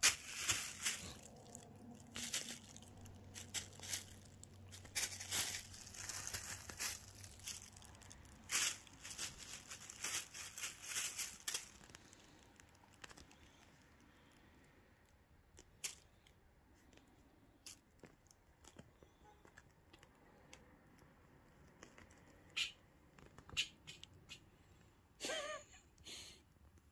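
Thin plastic shopping bag crinkling and rustling in bursts as a kitten pounces and scrabbles on it, busy for about the first twelve seconds, then only scattered light rustles and taps.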